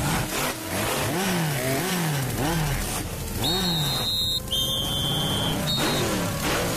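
Cartoon insects' wings buzzing like racing engines, revving up and down in repeated rising-and-falling sweeps. Near the middle, two high, steady whistle-like tones sound one after the other.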